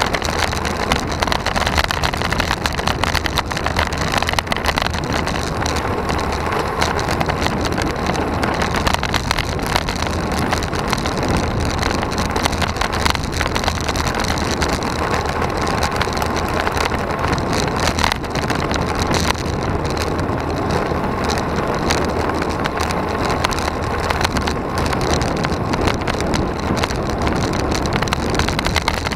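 Steady wind rush on the microphone and tyre noise from a road bike riding at speed on asphalt, with a constant fine rattle throughout.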